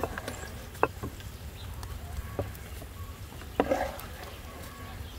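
A wooden ladle knocking and scraping against a metal pan and glass jars while jam is spooned out: a few separate light knocks, the loudest at the very start, with a short scrape about three and a half seconds in.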